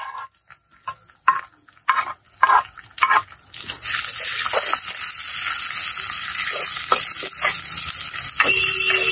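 Wooden spoon scraping and knocking as sliced onions and green chillies are pushed from a clay plate into a clay cooking pot. About four seconds in, a steady loud sizzle starts as they fry in hot oil and are stirred. Near the end a steady musical tone comes in.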